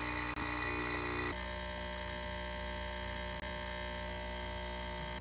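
Capsule espresso machine's pump humming steadily as it brews coffee into a mug. Its tone shifts slightly about a second in.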